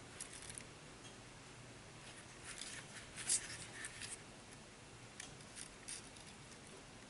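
Thin metal wires being twisted together by hand: faint, scattered scratching and small clicks, with a sharper click about three seconds in.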